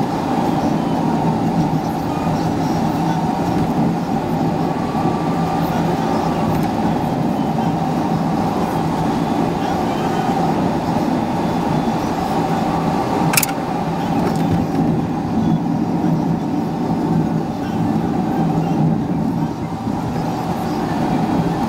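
Steady engine and road noise inside a car's cabin on a winding asphalt road, sped up to double speed, with a single sharp click about 13 seconds in.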